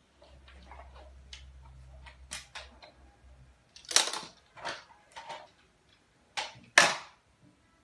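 Hard plastic toy trucks knocking and clattering as they are handled and pushed together: a run of sharp knocks, the loudest about four seconds in and near the end. A low rumble runs under the first three seconds or so.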